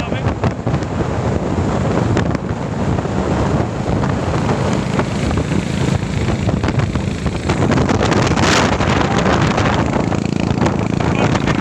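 Wind rushing over the microphone of a motorcycle at highway speed, with the motorcycle's engine and tyre noise underneath.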